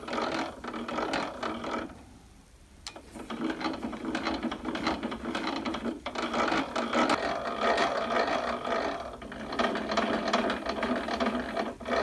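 Steel bevel gears of a drill press's table-raise mechanism turning as the handwheel drives the ballscrew, a rapid run of tooth clicks with a short pause about two seconds in. The gear mesh could be a bit tighter.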